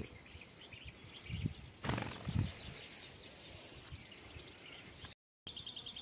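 Quiet outdoor ambience with a brief rustle about two seconds in and a few soft knocks after it. After a short dropout near the end, faint rapid chirping.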